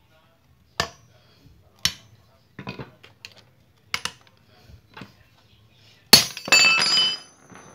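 Hammer blows on a steel drift and socket, driving a long bolt into a generator's rubber engine mount that rests on a steel block. Several sharp metal knocks come about a second apart; the last, a little after six seconds in, is the loudest and leaves a metallic ringing for about a second.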